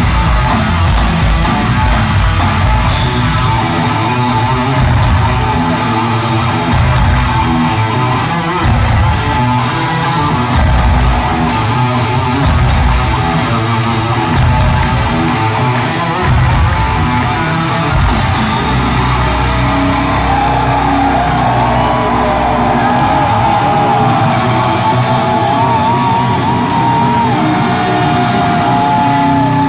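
Heavy metal band playing live in a large hall, with electric guitar, bass and drums. About two-thirds of the way through the drums and cymbals stop, and a held low chord rings under wavering, bending electric guitar notes as the song winds down.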